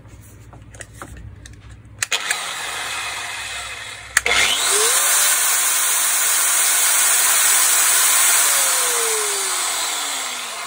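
Metabo MFE40 wall chaser's electric motor test-run on the bench with its gear head opened. It is switched on with a click about two seconds in and again about four seconds in, whines up to speed and runs with a loud whir. Near eight seconds in it is switched off and winds down with a falling whine.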